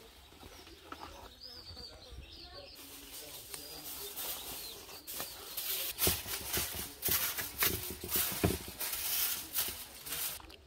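Aluminium foil crinkling and crackling as hands press and smooth it into a pot to line it, starting about halfway through; faint bird chirps in the quieter first part.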